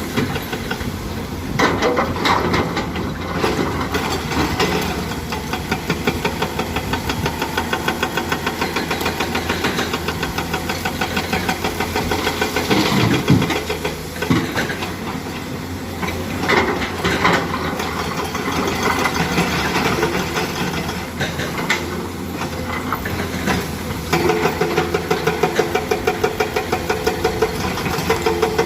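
Komatsu PC200 excavator's diesel engine running under changing load as the machine works, with louder surges a few times and a steady throbbing pulse near the end.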